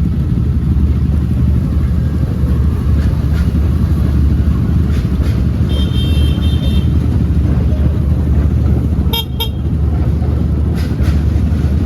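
Loud, steady rumble of riding a small motorcycle, with wind buffeting the microphone. A short horn toot sounds about six seconds in, and another brief blip comes near nine seconds.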